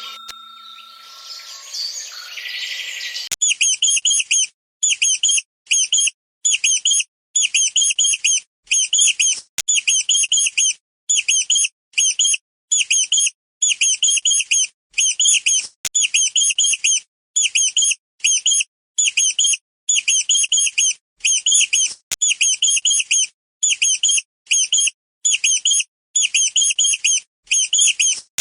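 A bird calling, repeating a short high chirping phrase about once a second in an even, unbroken series. The calls take over after about three seconds of a different, noisier sound.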